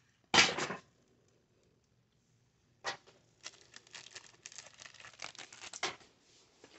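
Spilled trash being picked up by hand: paper and wrapper scraps rustling and crinkling. A loud rustle comes just after the start, then a flurry of short crackles from about three seconds in until nearly the end.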